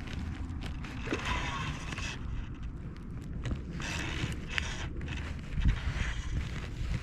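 Steady low rumble of wind buffeting the microphone, with patches of hiss and scattered clicks and rustles from handling outdoors.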